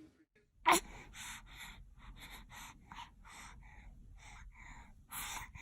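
A baby's quick, breathy gasps, about three a second, with a sharper one near the start and a stronger one near the end: the catching breaths that build up to a sneeze.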